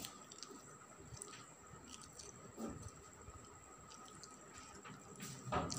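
Faint scattered taps and scuffles of a kitten's paws on a concrete floor as it plays, with a louder scuff near the end. A steady faint high tone runs underneath.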